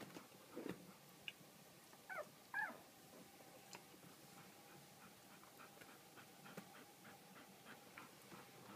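Nine-day-old golden retriever puppy giving two short, high squeaks that fall in pitch, about two seconds in.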